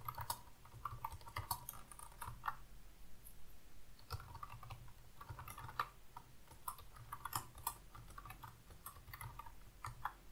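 Typing on a computer keyboard: quick runs of keystrokes, with a short pause about three seconds in.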